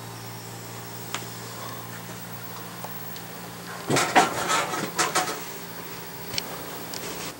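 Handling noise: a quick run of light clicks and clatters about four seconds in, with single clicks before and after, over a steady low hum that stops near the end.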